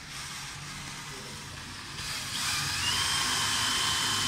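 Cordless drill boring into the end of a thin wooden strip. About two seconds in it gets louder, its motor whine rising in pitch and then holding steady.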